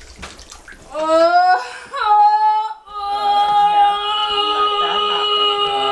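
A woman in labor vocalizing through a contraction: a short rising moan about a second in, another brief cry at two seconds, then one long, steady, high held tone from about three seconds on.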